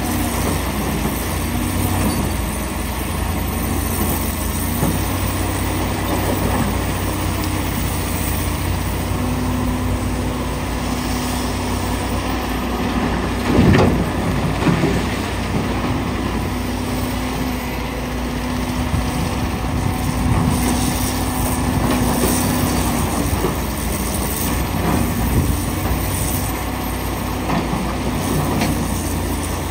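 Komatsu PC450LC excavator's diesel engine and hydraulics running steadily under load. About halfway through, a loud crash and rattle as a bucketload of broken rock drops into the steel bed of a dump truck, with smaller rock clatter later.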